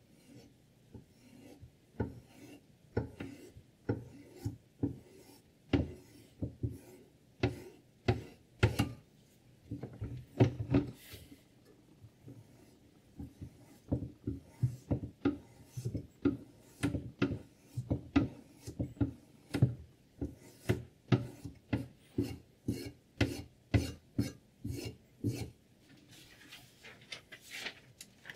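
Guided knife sharpener's stone drawn back and forth across a clamped steel knife edge: repeated short rasping strokes, about one to two a second, with a brief pause a little before the middle. Near the end, a sheet of paper rustles.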